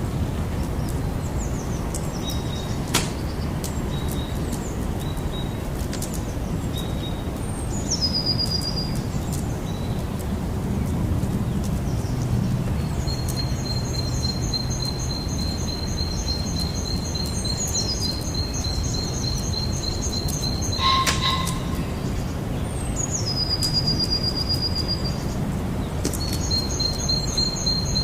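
Campfire burning with a steady low rush and scattered sharp crackles and pops, the loudest pop about three quarters of the way through. High, thin chirping calls and long pulsed trills from wildlife sound over the fire.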